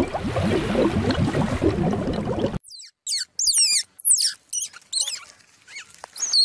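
Grey squirrel giving high-pitched squeaky chirps: short calls that each slide downward in pitch, in several quick clusters with pauses between. Before them, for about the first two and a half seconds, a dense busy noise that cuts off suddenly.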